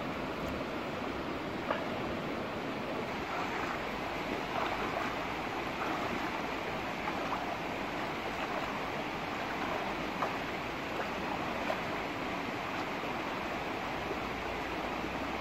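Shallow rocky stream running steadily, with a few faint splashes and clicks over the flow.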